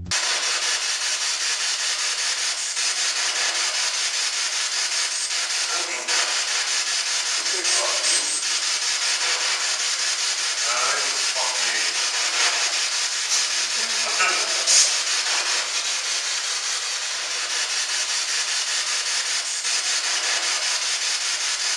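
Loud, steady static hiss with nothing below the low end. Faint, broken voice-like fragments come through it around the middle, with an odd click.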